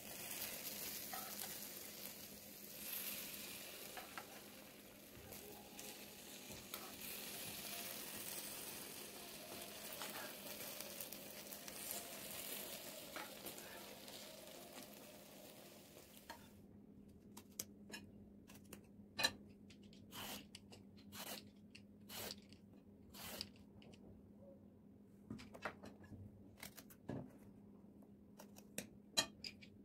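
Hot oven-roasted eggplant and peppers sizzling with a steady hiss as chopped tomato is spooned over them in a glass baking dish. About sixteen seconds in it gives way to short, crisp scraping crunches as strips of skin are peeled off raw eggplants with a small knife.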